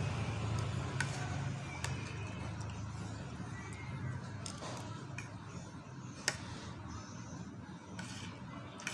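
Spoon and fork clinking and scraping against a plate while scooping fried rice, a few sharp clinks with the loudest about six seconds in, over a steady low rumble.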